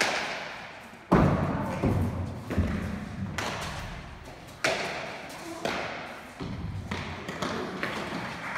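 Bare-hand Basque pelota (main nue) rally in a trinquet court. The hard pelota ball strikes the players' hands, the walls and the floor in a string of sharp thuds, roughly one a second, each echoing in the hall. The loudest thud comes about a second in.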